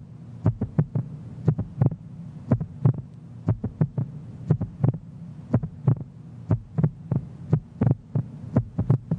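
Heartbeat sound: steady double thumps, lub-dub, about once a second, over a low steady hum.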